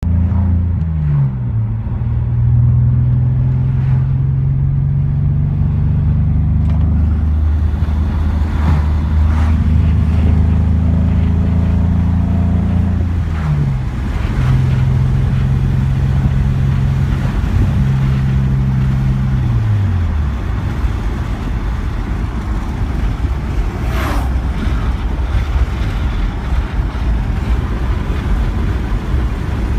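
BMW 330Ci's 3.0-litre inline-six running with a rough idle, its steady note sagging in pitch several times as if about to stall, then giving way to a rougher, uneven sound after about 20 seconds. This happens once the engine has run about ten minutes, and cleaning the MAF sensor and idle air valve has not cured it.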